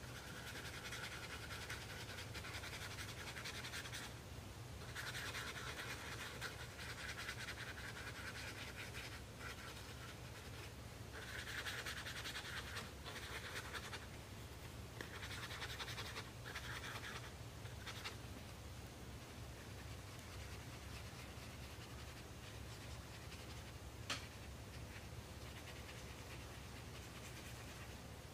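A water brush's bristles scrubbing on mixed-media sketchbook paper as it works water into the pigment: a faint, scratchy brushing in several stretches through the first half, then quieter, with one light tap later on.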